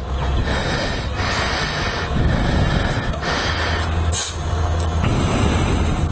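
Compressed air hissing through an inflator chuck into a punctured motorbike tyre, with a few short surges of hiss, the strongest about four seconds in. A steady low hum runs underneath.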